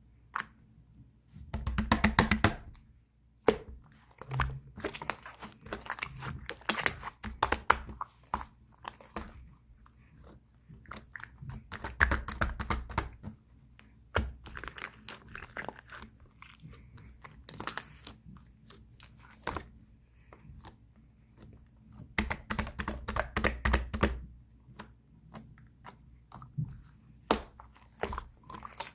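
Close-up crunching and crinkling in irregular clusters of small crackles, loudest in bursts about 2, 12 and 23 seconds in.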